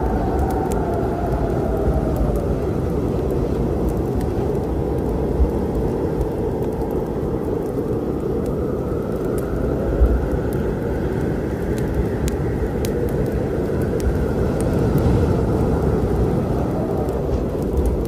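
Storm ambience: a steady, deep rumble of wind and storm noise, with a howling wind tone falling away over the first couple of seconds. Scattered small crackles and pops of a wood fire run through it.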